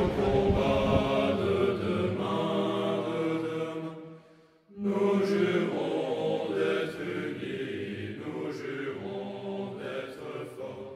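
Background music: a choir singing long held, chant-like notes, with a short break about four and a half seconds in before it resumes.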